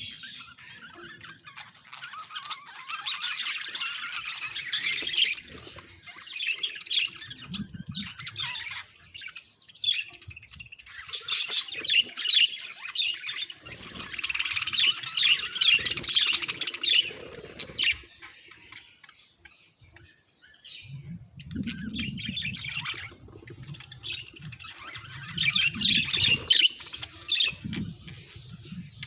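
Budgerigars chattering and warbling in fast, scratchy squawks and chirps, coming in several spells with short lulls between. Low rustling joins in during the last third.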